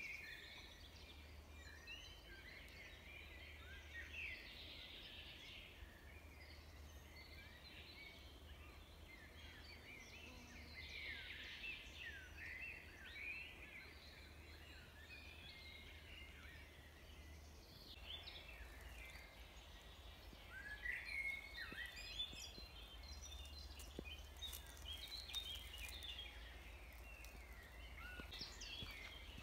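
Faint woodland chorus of several songbirds, many short chirps and trills overlapping throughout, over a steady low rumble.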